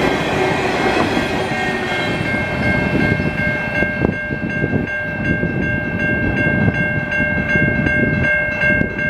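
Freight train tank cars rolling past, wheel and rail rumble easing off as the end of the train moves away. From about two seconds in, the grade-crossing warning bell stands out, ringing with quick, evenly repeated strikes.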